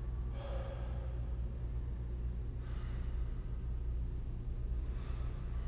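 A man breathing hard through a long plank hold, with three long exhales about two and a half seconds apart, over a steady low hum.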